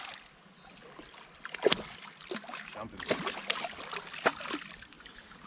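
A hooked smallmouth bass splashing and thrashing at the surface of shallow river water as it is drawn in, a run of sharp, irregular splashes with the loudest about one and a half seconds in.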